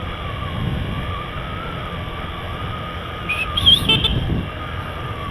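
Small street motorcycle's engine running at low speed, a steady rumble with wind on a helmet-mounted microphone. Around three and a half seconds in, a brief high-pitched sound rises over it, with a short louder swell just after.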